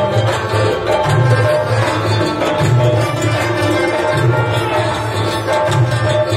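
Live band music with a fast hand-drum rhythm on a rope-tuned barrel drum, over a keyboard melody and a low bass pulse that returns about every second and a half.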